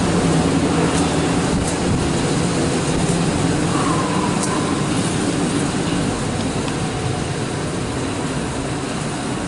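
Mark VII ChoiceWash XT car wash machine running: a steady rushing drone of its motors and water spray as the red cloth brushes turn.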